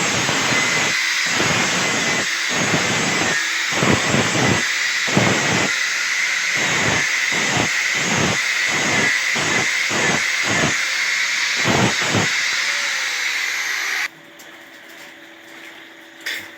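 Angle grinder finishing a weld on a steel railing: a steady hiss with a thin whine, and a low pulse about one and a half times a second as the disc is worked along the metal. It stops a couple of seconds before the end.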